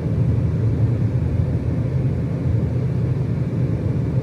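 A car on the move: a loud, steady low rumble of road and engine noise.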